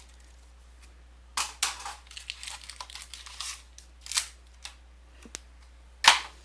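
A trading-card box and its packs being opened by hand: crinkling and tearing of plastic wrap and packaging, with sharp snaps, the loudest of them near the end.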